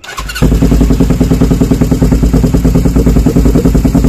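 Suzuki GS500's parallel-twin engine turned over by the starter and catching within half a second, then idling loudly and evenly through a newly fitted SC Project slip-on exhaust, with a deep, pulsing bass note.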